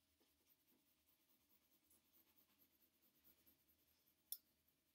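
Faint scratching of a pencil shading on sketchbook paper in quick, repeated short strokes, with one sharp click about four seconds in.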